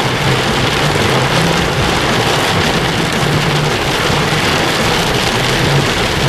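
Torrential rain hitting a car's roof and windshield, a loud steady hiss heard from inside the car, with a low hum from the moving car underneath.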